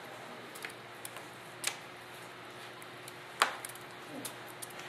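A few sharp clicks and gritty crunches of wet Portland cement, sand, oyster-shell and rock-salt mix being scooped up and let fall by a gloved hand, the loudest about three and a half seconds in, over a faint steady hum.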